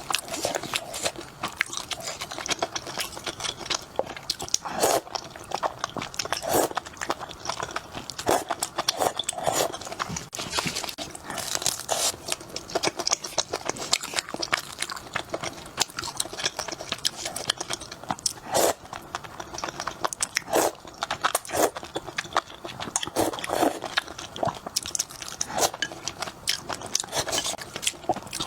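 A person biting and chewing food close to the microphone, a dense run of irregular short crackles and clicks, as in a mukbang eating show.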